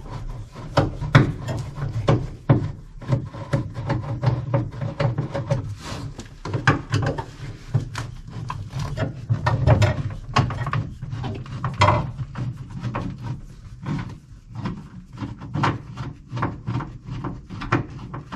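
Irregular clicks, knocks and scraping from hand work with a screwdriver, backing out the angled screw that holds a car's window crank handle and working the handle loose, over a steady low hum.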